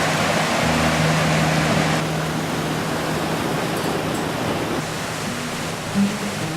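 Waterfall and river water rushing, a steady loud hiss of falling water.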